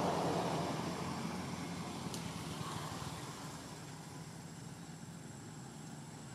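A motor vehicle's engine passing by, loudest at the start and fading away over the first three seconds, leaving a faint steady hum.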